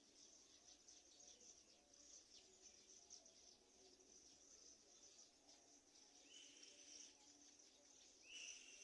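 Faint outdoor ambience: steady, high-pitched insect chirring, with two short bird calls, one about six and a half seconds in and one near the end.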